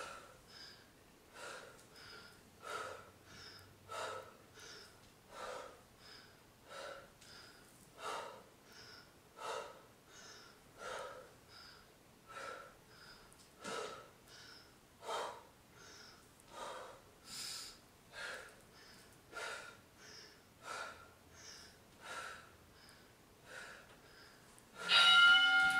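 A woman breathing hard and rhythmically through a set of dumbbell Bulgarian split squats, a breath in and out with each rep, about one rep every second and a half. Near the end an interval timer beeps loudly, marking the end of the 50-second work interval.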